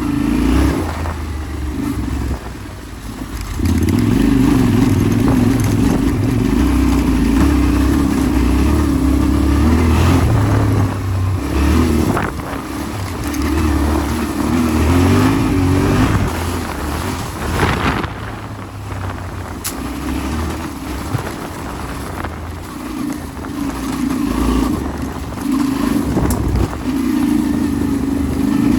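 Yamaha Ténéré 700's parallel-twin engine running under a rider off-road, the throttle opening and closing every few seconds so the engine note keeps rising and falling. There are a few sharp clicks along the way.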